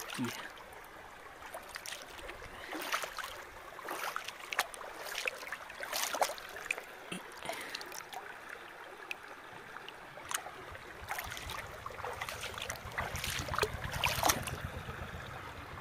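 Shallow stream water trickling, with irregular small splashes as a hand moves through the water over the stones. A low steady rumble joins in over the last few seconds.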